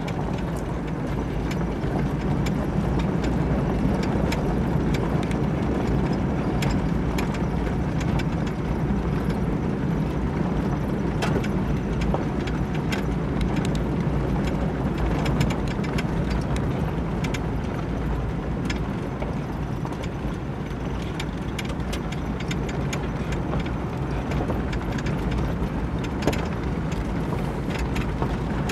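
Steady road and engine noise heard from inside a slowly moving car with the passenger window open, with scattered light clicks.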